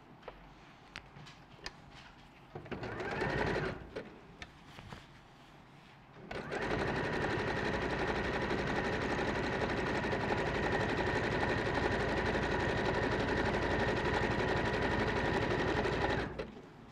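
Domestic sewing machine zigzag-stitching the edge of a single layer of fabric: light clicks at first, a short burst of about a second around three seconds in, then a steady run of about ten seconds that stops near the end.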